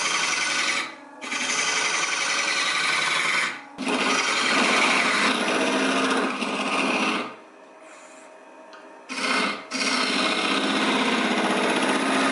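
A gouge cutting the outside of a spinning wooden pipe bowl on a wood lathe, a rough scraping in several passes. It breaks off briefly about one and four seconds in, then drops to a lower lathe hum for about two seconds about two-thirds through before cutting resumes.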